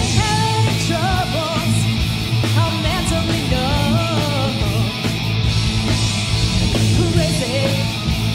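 A live hard rock band playing: electric guitars, bass guitar and drums, with a woman singing the lead vocal.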